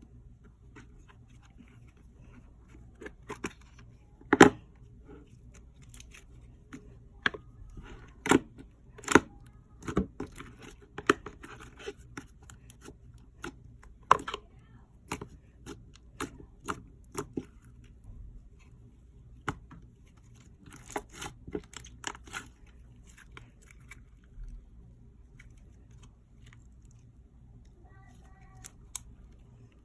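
Slime being played with by hand, making irregular sharp clicks and crackly pops, the loudest about four seconds in.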